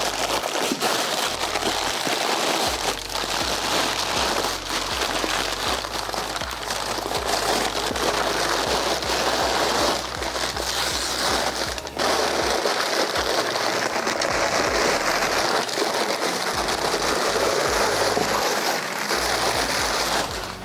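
Brown packing paper being torn and crumpled by hand: a continuous crinkling, ripping rustle with a few short pauses.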